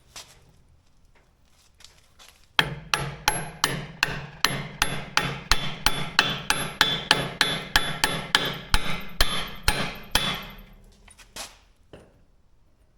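Hammer blows on steel, driving a bushing into a skid steer's quick-attach: about 25 quick, even strikes at roughly three a second, each with a metallic ring. They start a couple of seconds in and stop well before the end.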